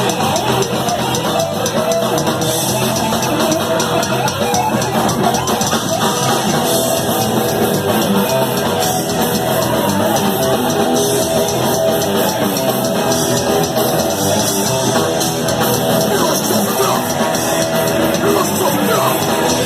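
Speed/thrash metal band playing live: electric guitars and a drum kit playing loud and continuously.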